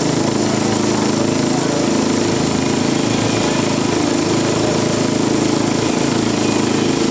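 A small engine running steadily at a constant speed, with a fast, even pulsing beat.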